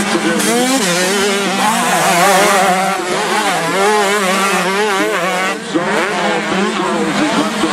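Several 125 cc two-stroke motocross bikes racing at once, their engines revving up and down as the riders work the throttle over the jumps. Underneath runs a steady low hum.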